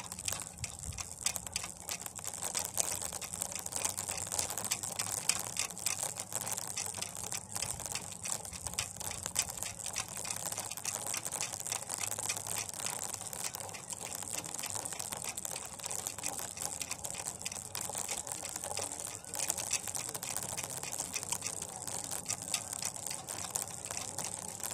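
Pulley of a homemade cable winch running along its steel wire cable under load: a steady, dense crackling rattle with a constant high hiss.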